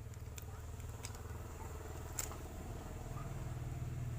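Steady low hum with a few light clicks of small plastic fishing lures and their packets being handled.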